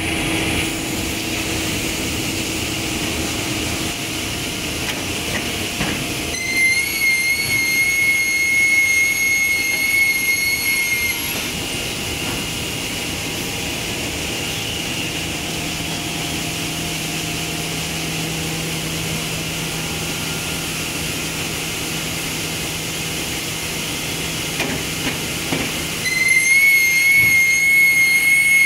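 MDF production line machinery running steadily: powered conveyor rollers and roll machines turning with a constant mechanical drone and hum. A high-pitched whine comes in for a few seconds about a quarter of the way in, and again near the end.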